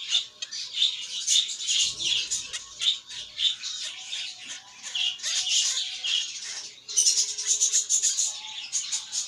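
Budgerigar squawking in a rapid string of harsh, scratchy screeches, loudest from about seven seconds in.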